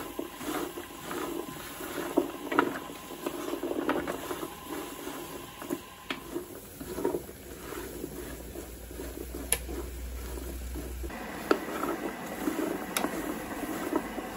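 Butterbur roots being stirred and tossed with a wooden spatula in an electric pan while they are pan-roasted for tea: dry rattling and scraping with frequent sharp clicks of roots on the pan. A low hum comes in for a few seconds in the middle.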